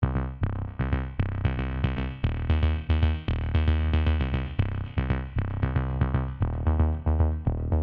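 Electronic background music: a synthesizer line of short notes that fade quickly, over a drum-machine beat and strong bass.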